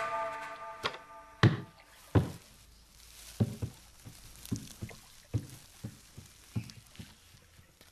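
A string of about a dozen short knocks and thuds at uneven spacing, getting fainter, after a tabla-led folk tune fades out at the start.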